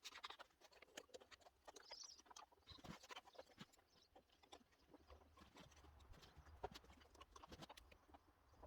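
Faint, irregular clicks and light taps of small wooden pieces being handled and set against each other during a glue-up.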